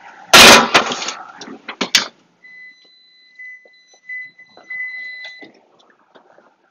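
Metal baking pan pushed onto the wall oven's rack with a loud clatter, followed by a sharp knock about two seconds in as the oven door shuts. Then a thin, high electronic beep tone sounds on and off for about three seconds.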